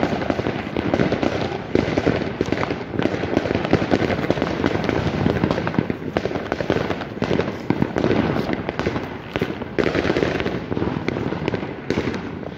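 Many fireworks and firecrackers going off at once: a dense, unbroken crackle of rapid bangs.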